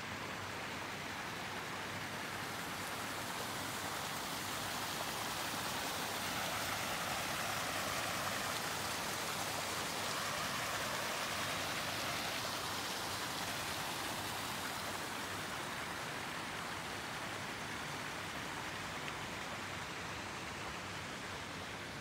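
Steady hiss of rushing, splashing water that swells a little in the middle and eases toward the end.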